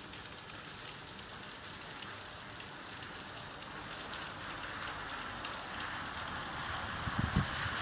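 Rain falling, a steady hiss with a fine patter of drops. In the last couple of seconds a louder rushing noise swells in, with a few low thumps near the end.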